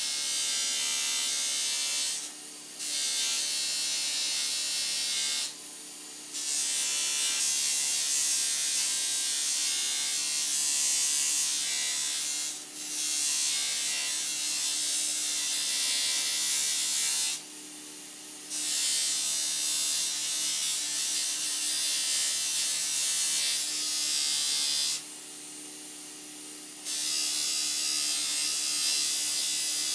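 Pedestal buffing machine's wheel spinning with a loud hiss as a small metal shower fitting is pressed against it for polishing. The hiss breaks off for a second or two several times, leaving the motor's steady hum.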